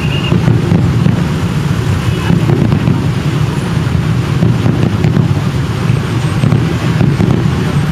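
Steady murmur of a large outdoor crowd, many voices blending with a low rumble and no single word standing out.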